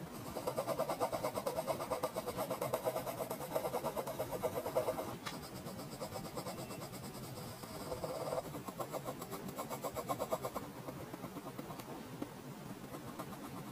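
Graphite pencil scratching on drawing paper in quick, rhythmic back-and-forth shading strokes. It comes in two spells: one at the start that stops about five seconds in, and another from about eight to eleven seconds in.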